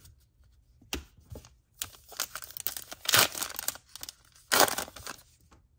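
A baseball card pack's foil wrapper crinkling and tearing open in a few loud bursts.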